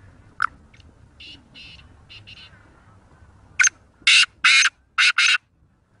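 Black francolin calling: a few short, softer notes, then from about three and a half seconds in a loud, harsh rasping phrase of five notes, one short, two longer and two short in quick succession.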